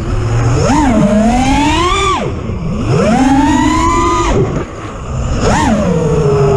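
FPV racing quadcopter's four brushless motors and propellers (T-Motor F60 Pro II 2500kv), heard from its own onboard camera, whining up and down in pitch as the throttle is punched and chopped several times during acrobatic flight.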